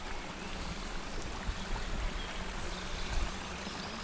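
Small forest stream running with a steady, even rush of water, with a few low thumps about a second and a half in and again near the end.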